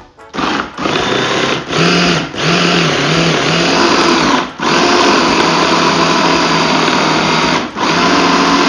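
Electric mini food processor running in several bursts with brief pauses, chopping raw prawns, fish and imitation crab into a paste. Its motor hum wavers in the first few runs, then holds steadier.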